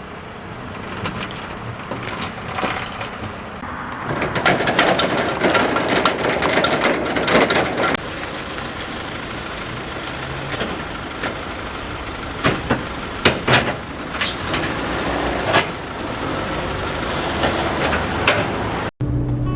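A motor vehicle running steadily, with a stretch of dense knocks and rattles from about four to eight seconds in and scattered sharp clicks after.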